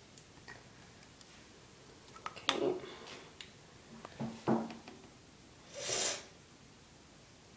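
Small handling noises from a nail polish bottle and brush: a few light clicks and rubs about two and a half and four and a half seconds in, then a short breathy hiss about six seconds in.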